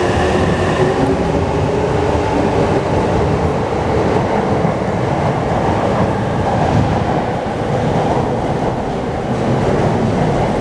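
E259 series Narita Express electric train pulling out, with its motor whine dropping away about a second in. Steady wheel and rail noise continues as the train moves off along the platform.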